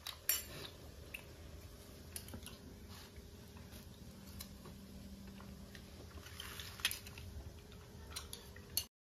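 Scattered light clicks and taps of spoons and dishes as people eat, over a faint steady hum.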